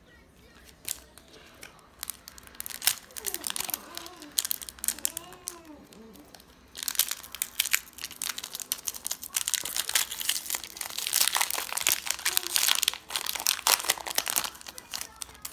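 A Pokémon booster pack's foil wrapper being crinkled and torn open by hand: dense, crackly rustling, loudest and busiest from about seven seconds in.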